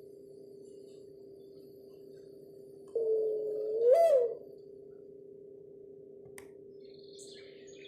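Mourning dove cooing: one long coo about three seconds in, held level, then swooping up and falling away, over a steady low hum.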